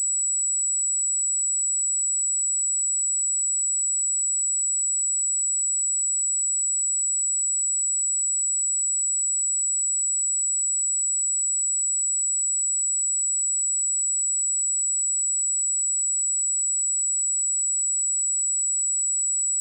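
A pure 7845 Hz sine-wave test tone, a single steady high-pitched whistle held at constant level.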